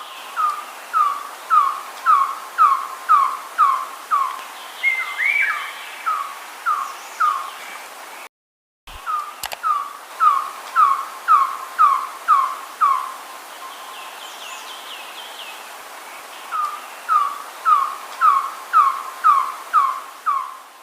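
A bird calling a steady series of short, clear whistled notes, each dipping in pitch, about two a second, in three runs of roughly eight to ten notes. A fainter second bird call slides up and down briefly about five seconds in.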